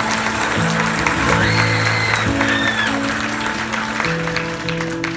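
Audience applauding over held chords from the band that change every second or two.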